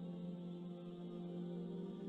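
Background music: soft, sustained ambient synth tones.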